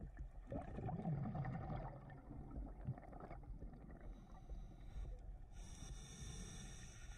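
Scuba diver's breathing through a regulator, heard underwater: a bubbling exhale that lasts about three seconds, then a hissing inhale near the end.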